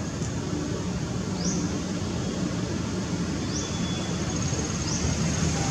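Forest ambience: a steady high insect drone, with several calls swelling up in pitch as they start, over a steady low rumble.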